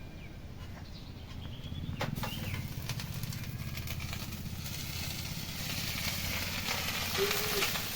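Onions and spices frying in hot oil, the sizzle growing louder from about two seconds in, over a low steady rumble.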